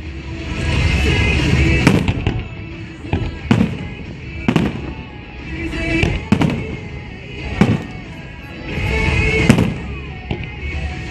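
Aerial fireworks shells bursting overhead, about half a dozen sharp booms one every second or two, with swells of sizzling and crackling between them.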